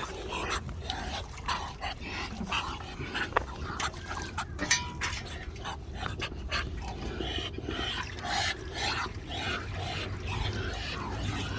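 An animal's noises, dog-like, with many short irregular sounds throughout over a steady low hum.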